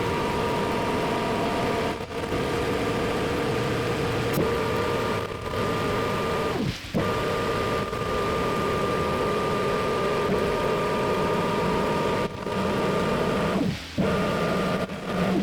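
Metal lathe running steadily while machining a steel bar shaft, with a steady whine over a broad machining noise. The sound breaks off briefly several times.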